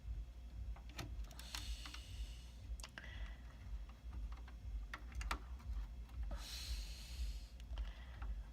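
Scattered light clicks and taps of hardware being handled as the Xeon processor is taken out of its socket on a Dell PowerEdge SC1430 motherboard, with a brief swish about six and a half seconds in, over a steady low hum.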